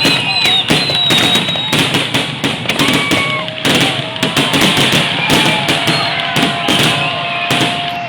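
Fireworks finale barrage: rapid, overlapping bangs and crackles with hardly a gap, and whistling tones held and gliding over them.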